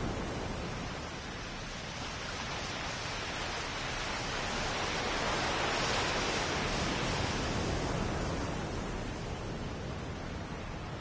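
Surf washing onto a sandy beach: a steady hiss of waves that swells to its loudest about halfway through, then eases back.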